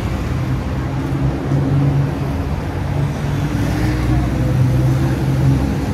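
Busy city street traffic with a steady low engine hum from a nearby vehicle, mixed with the voices of people passing.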